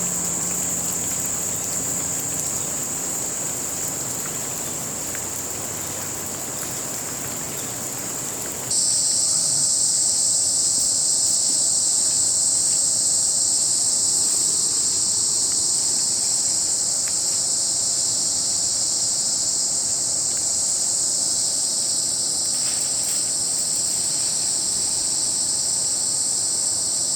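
Rainforest insect chorus: a steady high-pitched drone that about nine seconds in changes abruptly to a louder, fuller high drone, which then holds.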